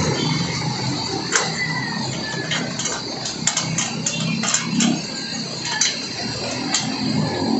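Scattered light clicks and taps of metal being handled: a solar panel's metal frame being worked by gloved hands on a corrugated metal roof, over steady background noise.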